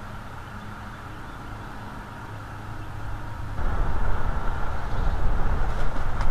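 Steady low outdoor rumble from a treetop nest camera's microphone, jumping suddenly louder and gustier about three and a half seconds in.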